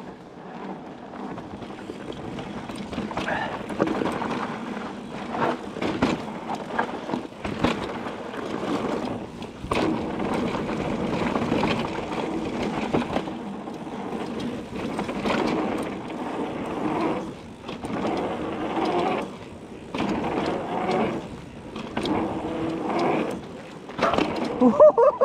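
Mountain bike ridden on a dirt forest trail: tyres rolling and rumbling over the ground, with frequent knocks and rattles from the chain and frame.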